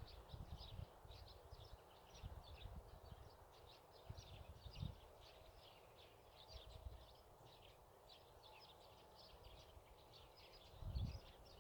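Faint, continuous chatter of small birds, many short high chirps a second, with low wind rumble on the microphone that grows near the end.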